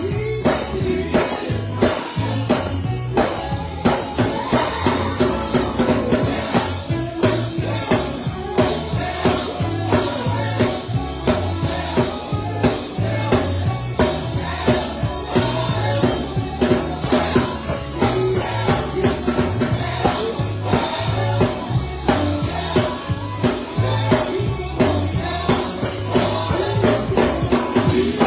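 Upbeat gospel music from a live band, with a drum kit keeping a fast, steady beat over a bass line.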